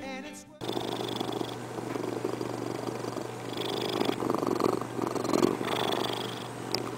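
A domestic cat purring close to the microphone, the purr swelling and fading in waves. A song cuts off abruptly about half a second in.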